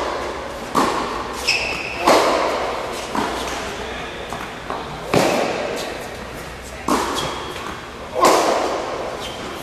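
Tennis ball being struck by a racket and bouncing on an indoor hard court: sharp pops every second or two, each ringing on in the large hall, with short high squeaks in between.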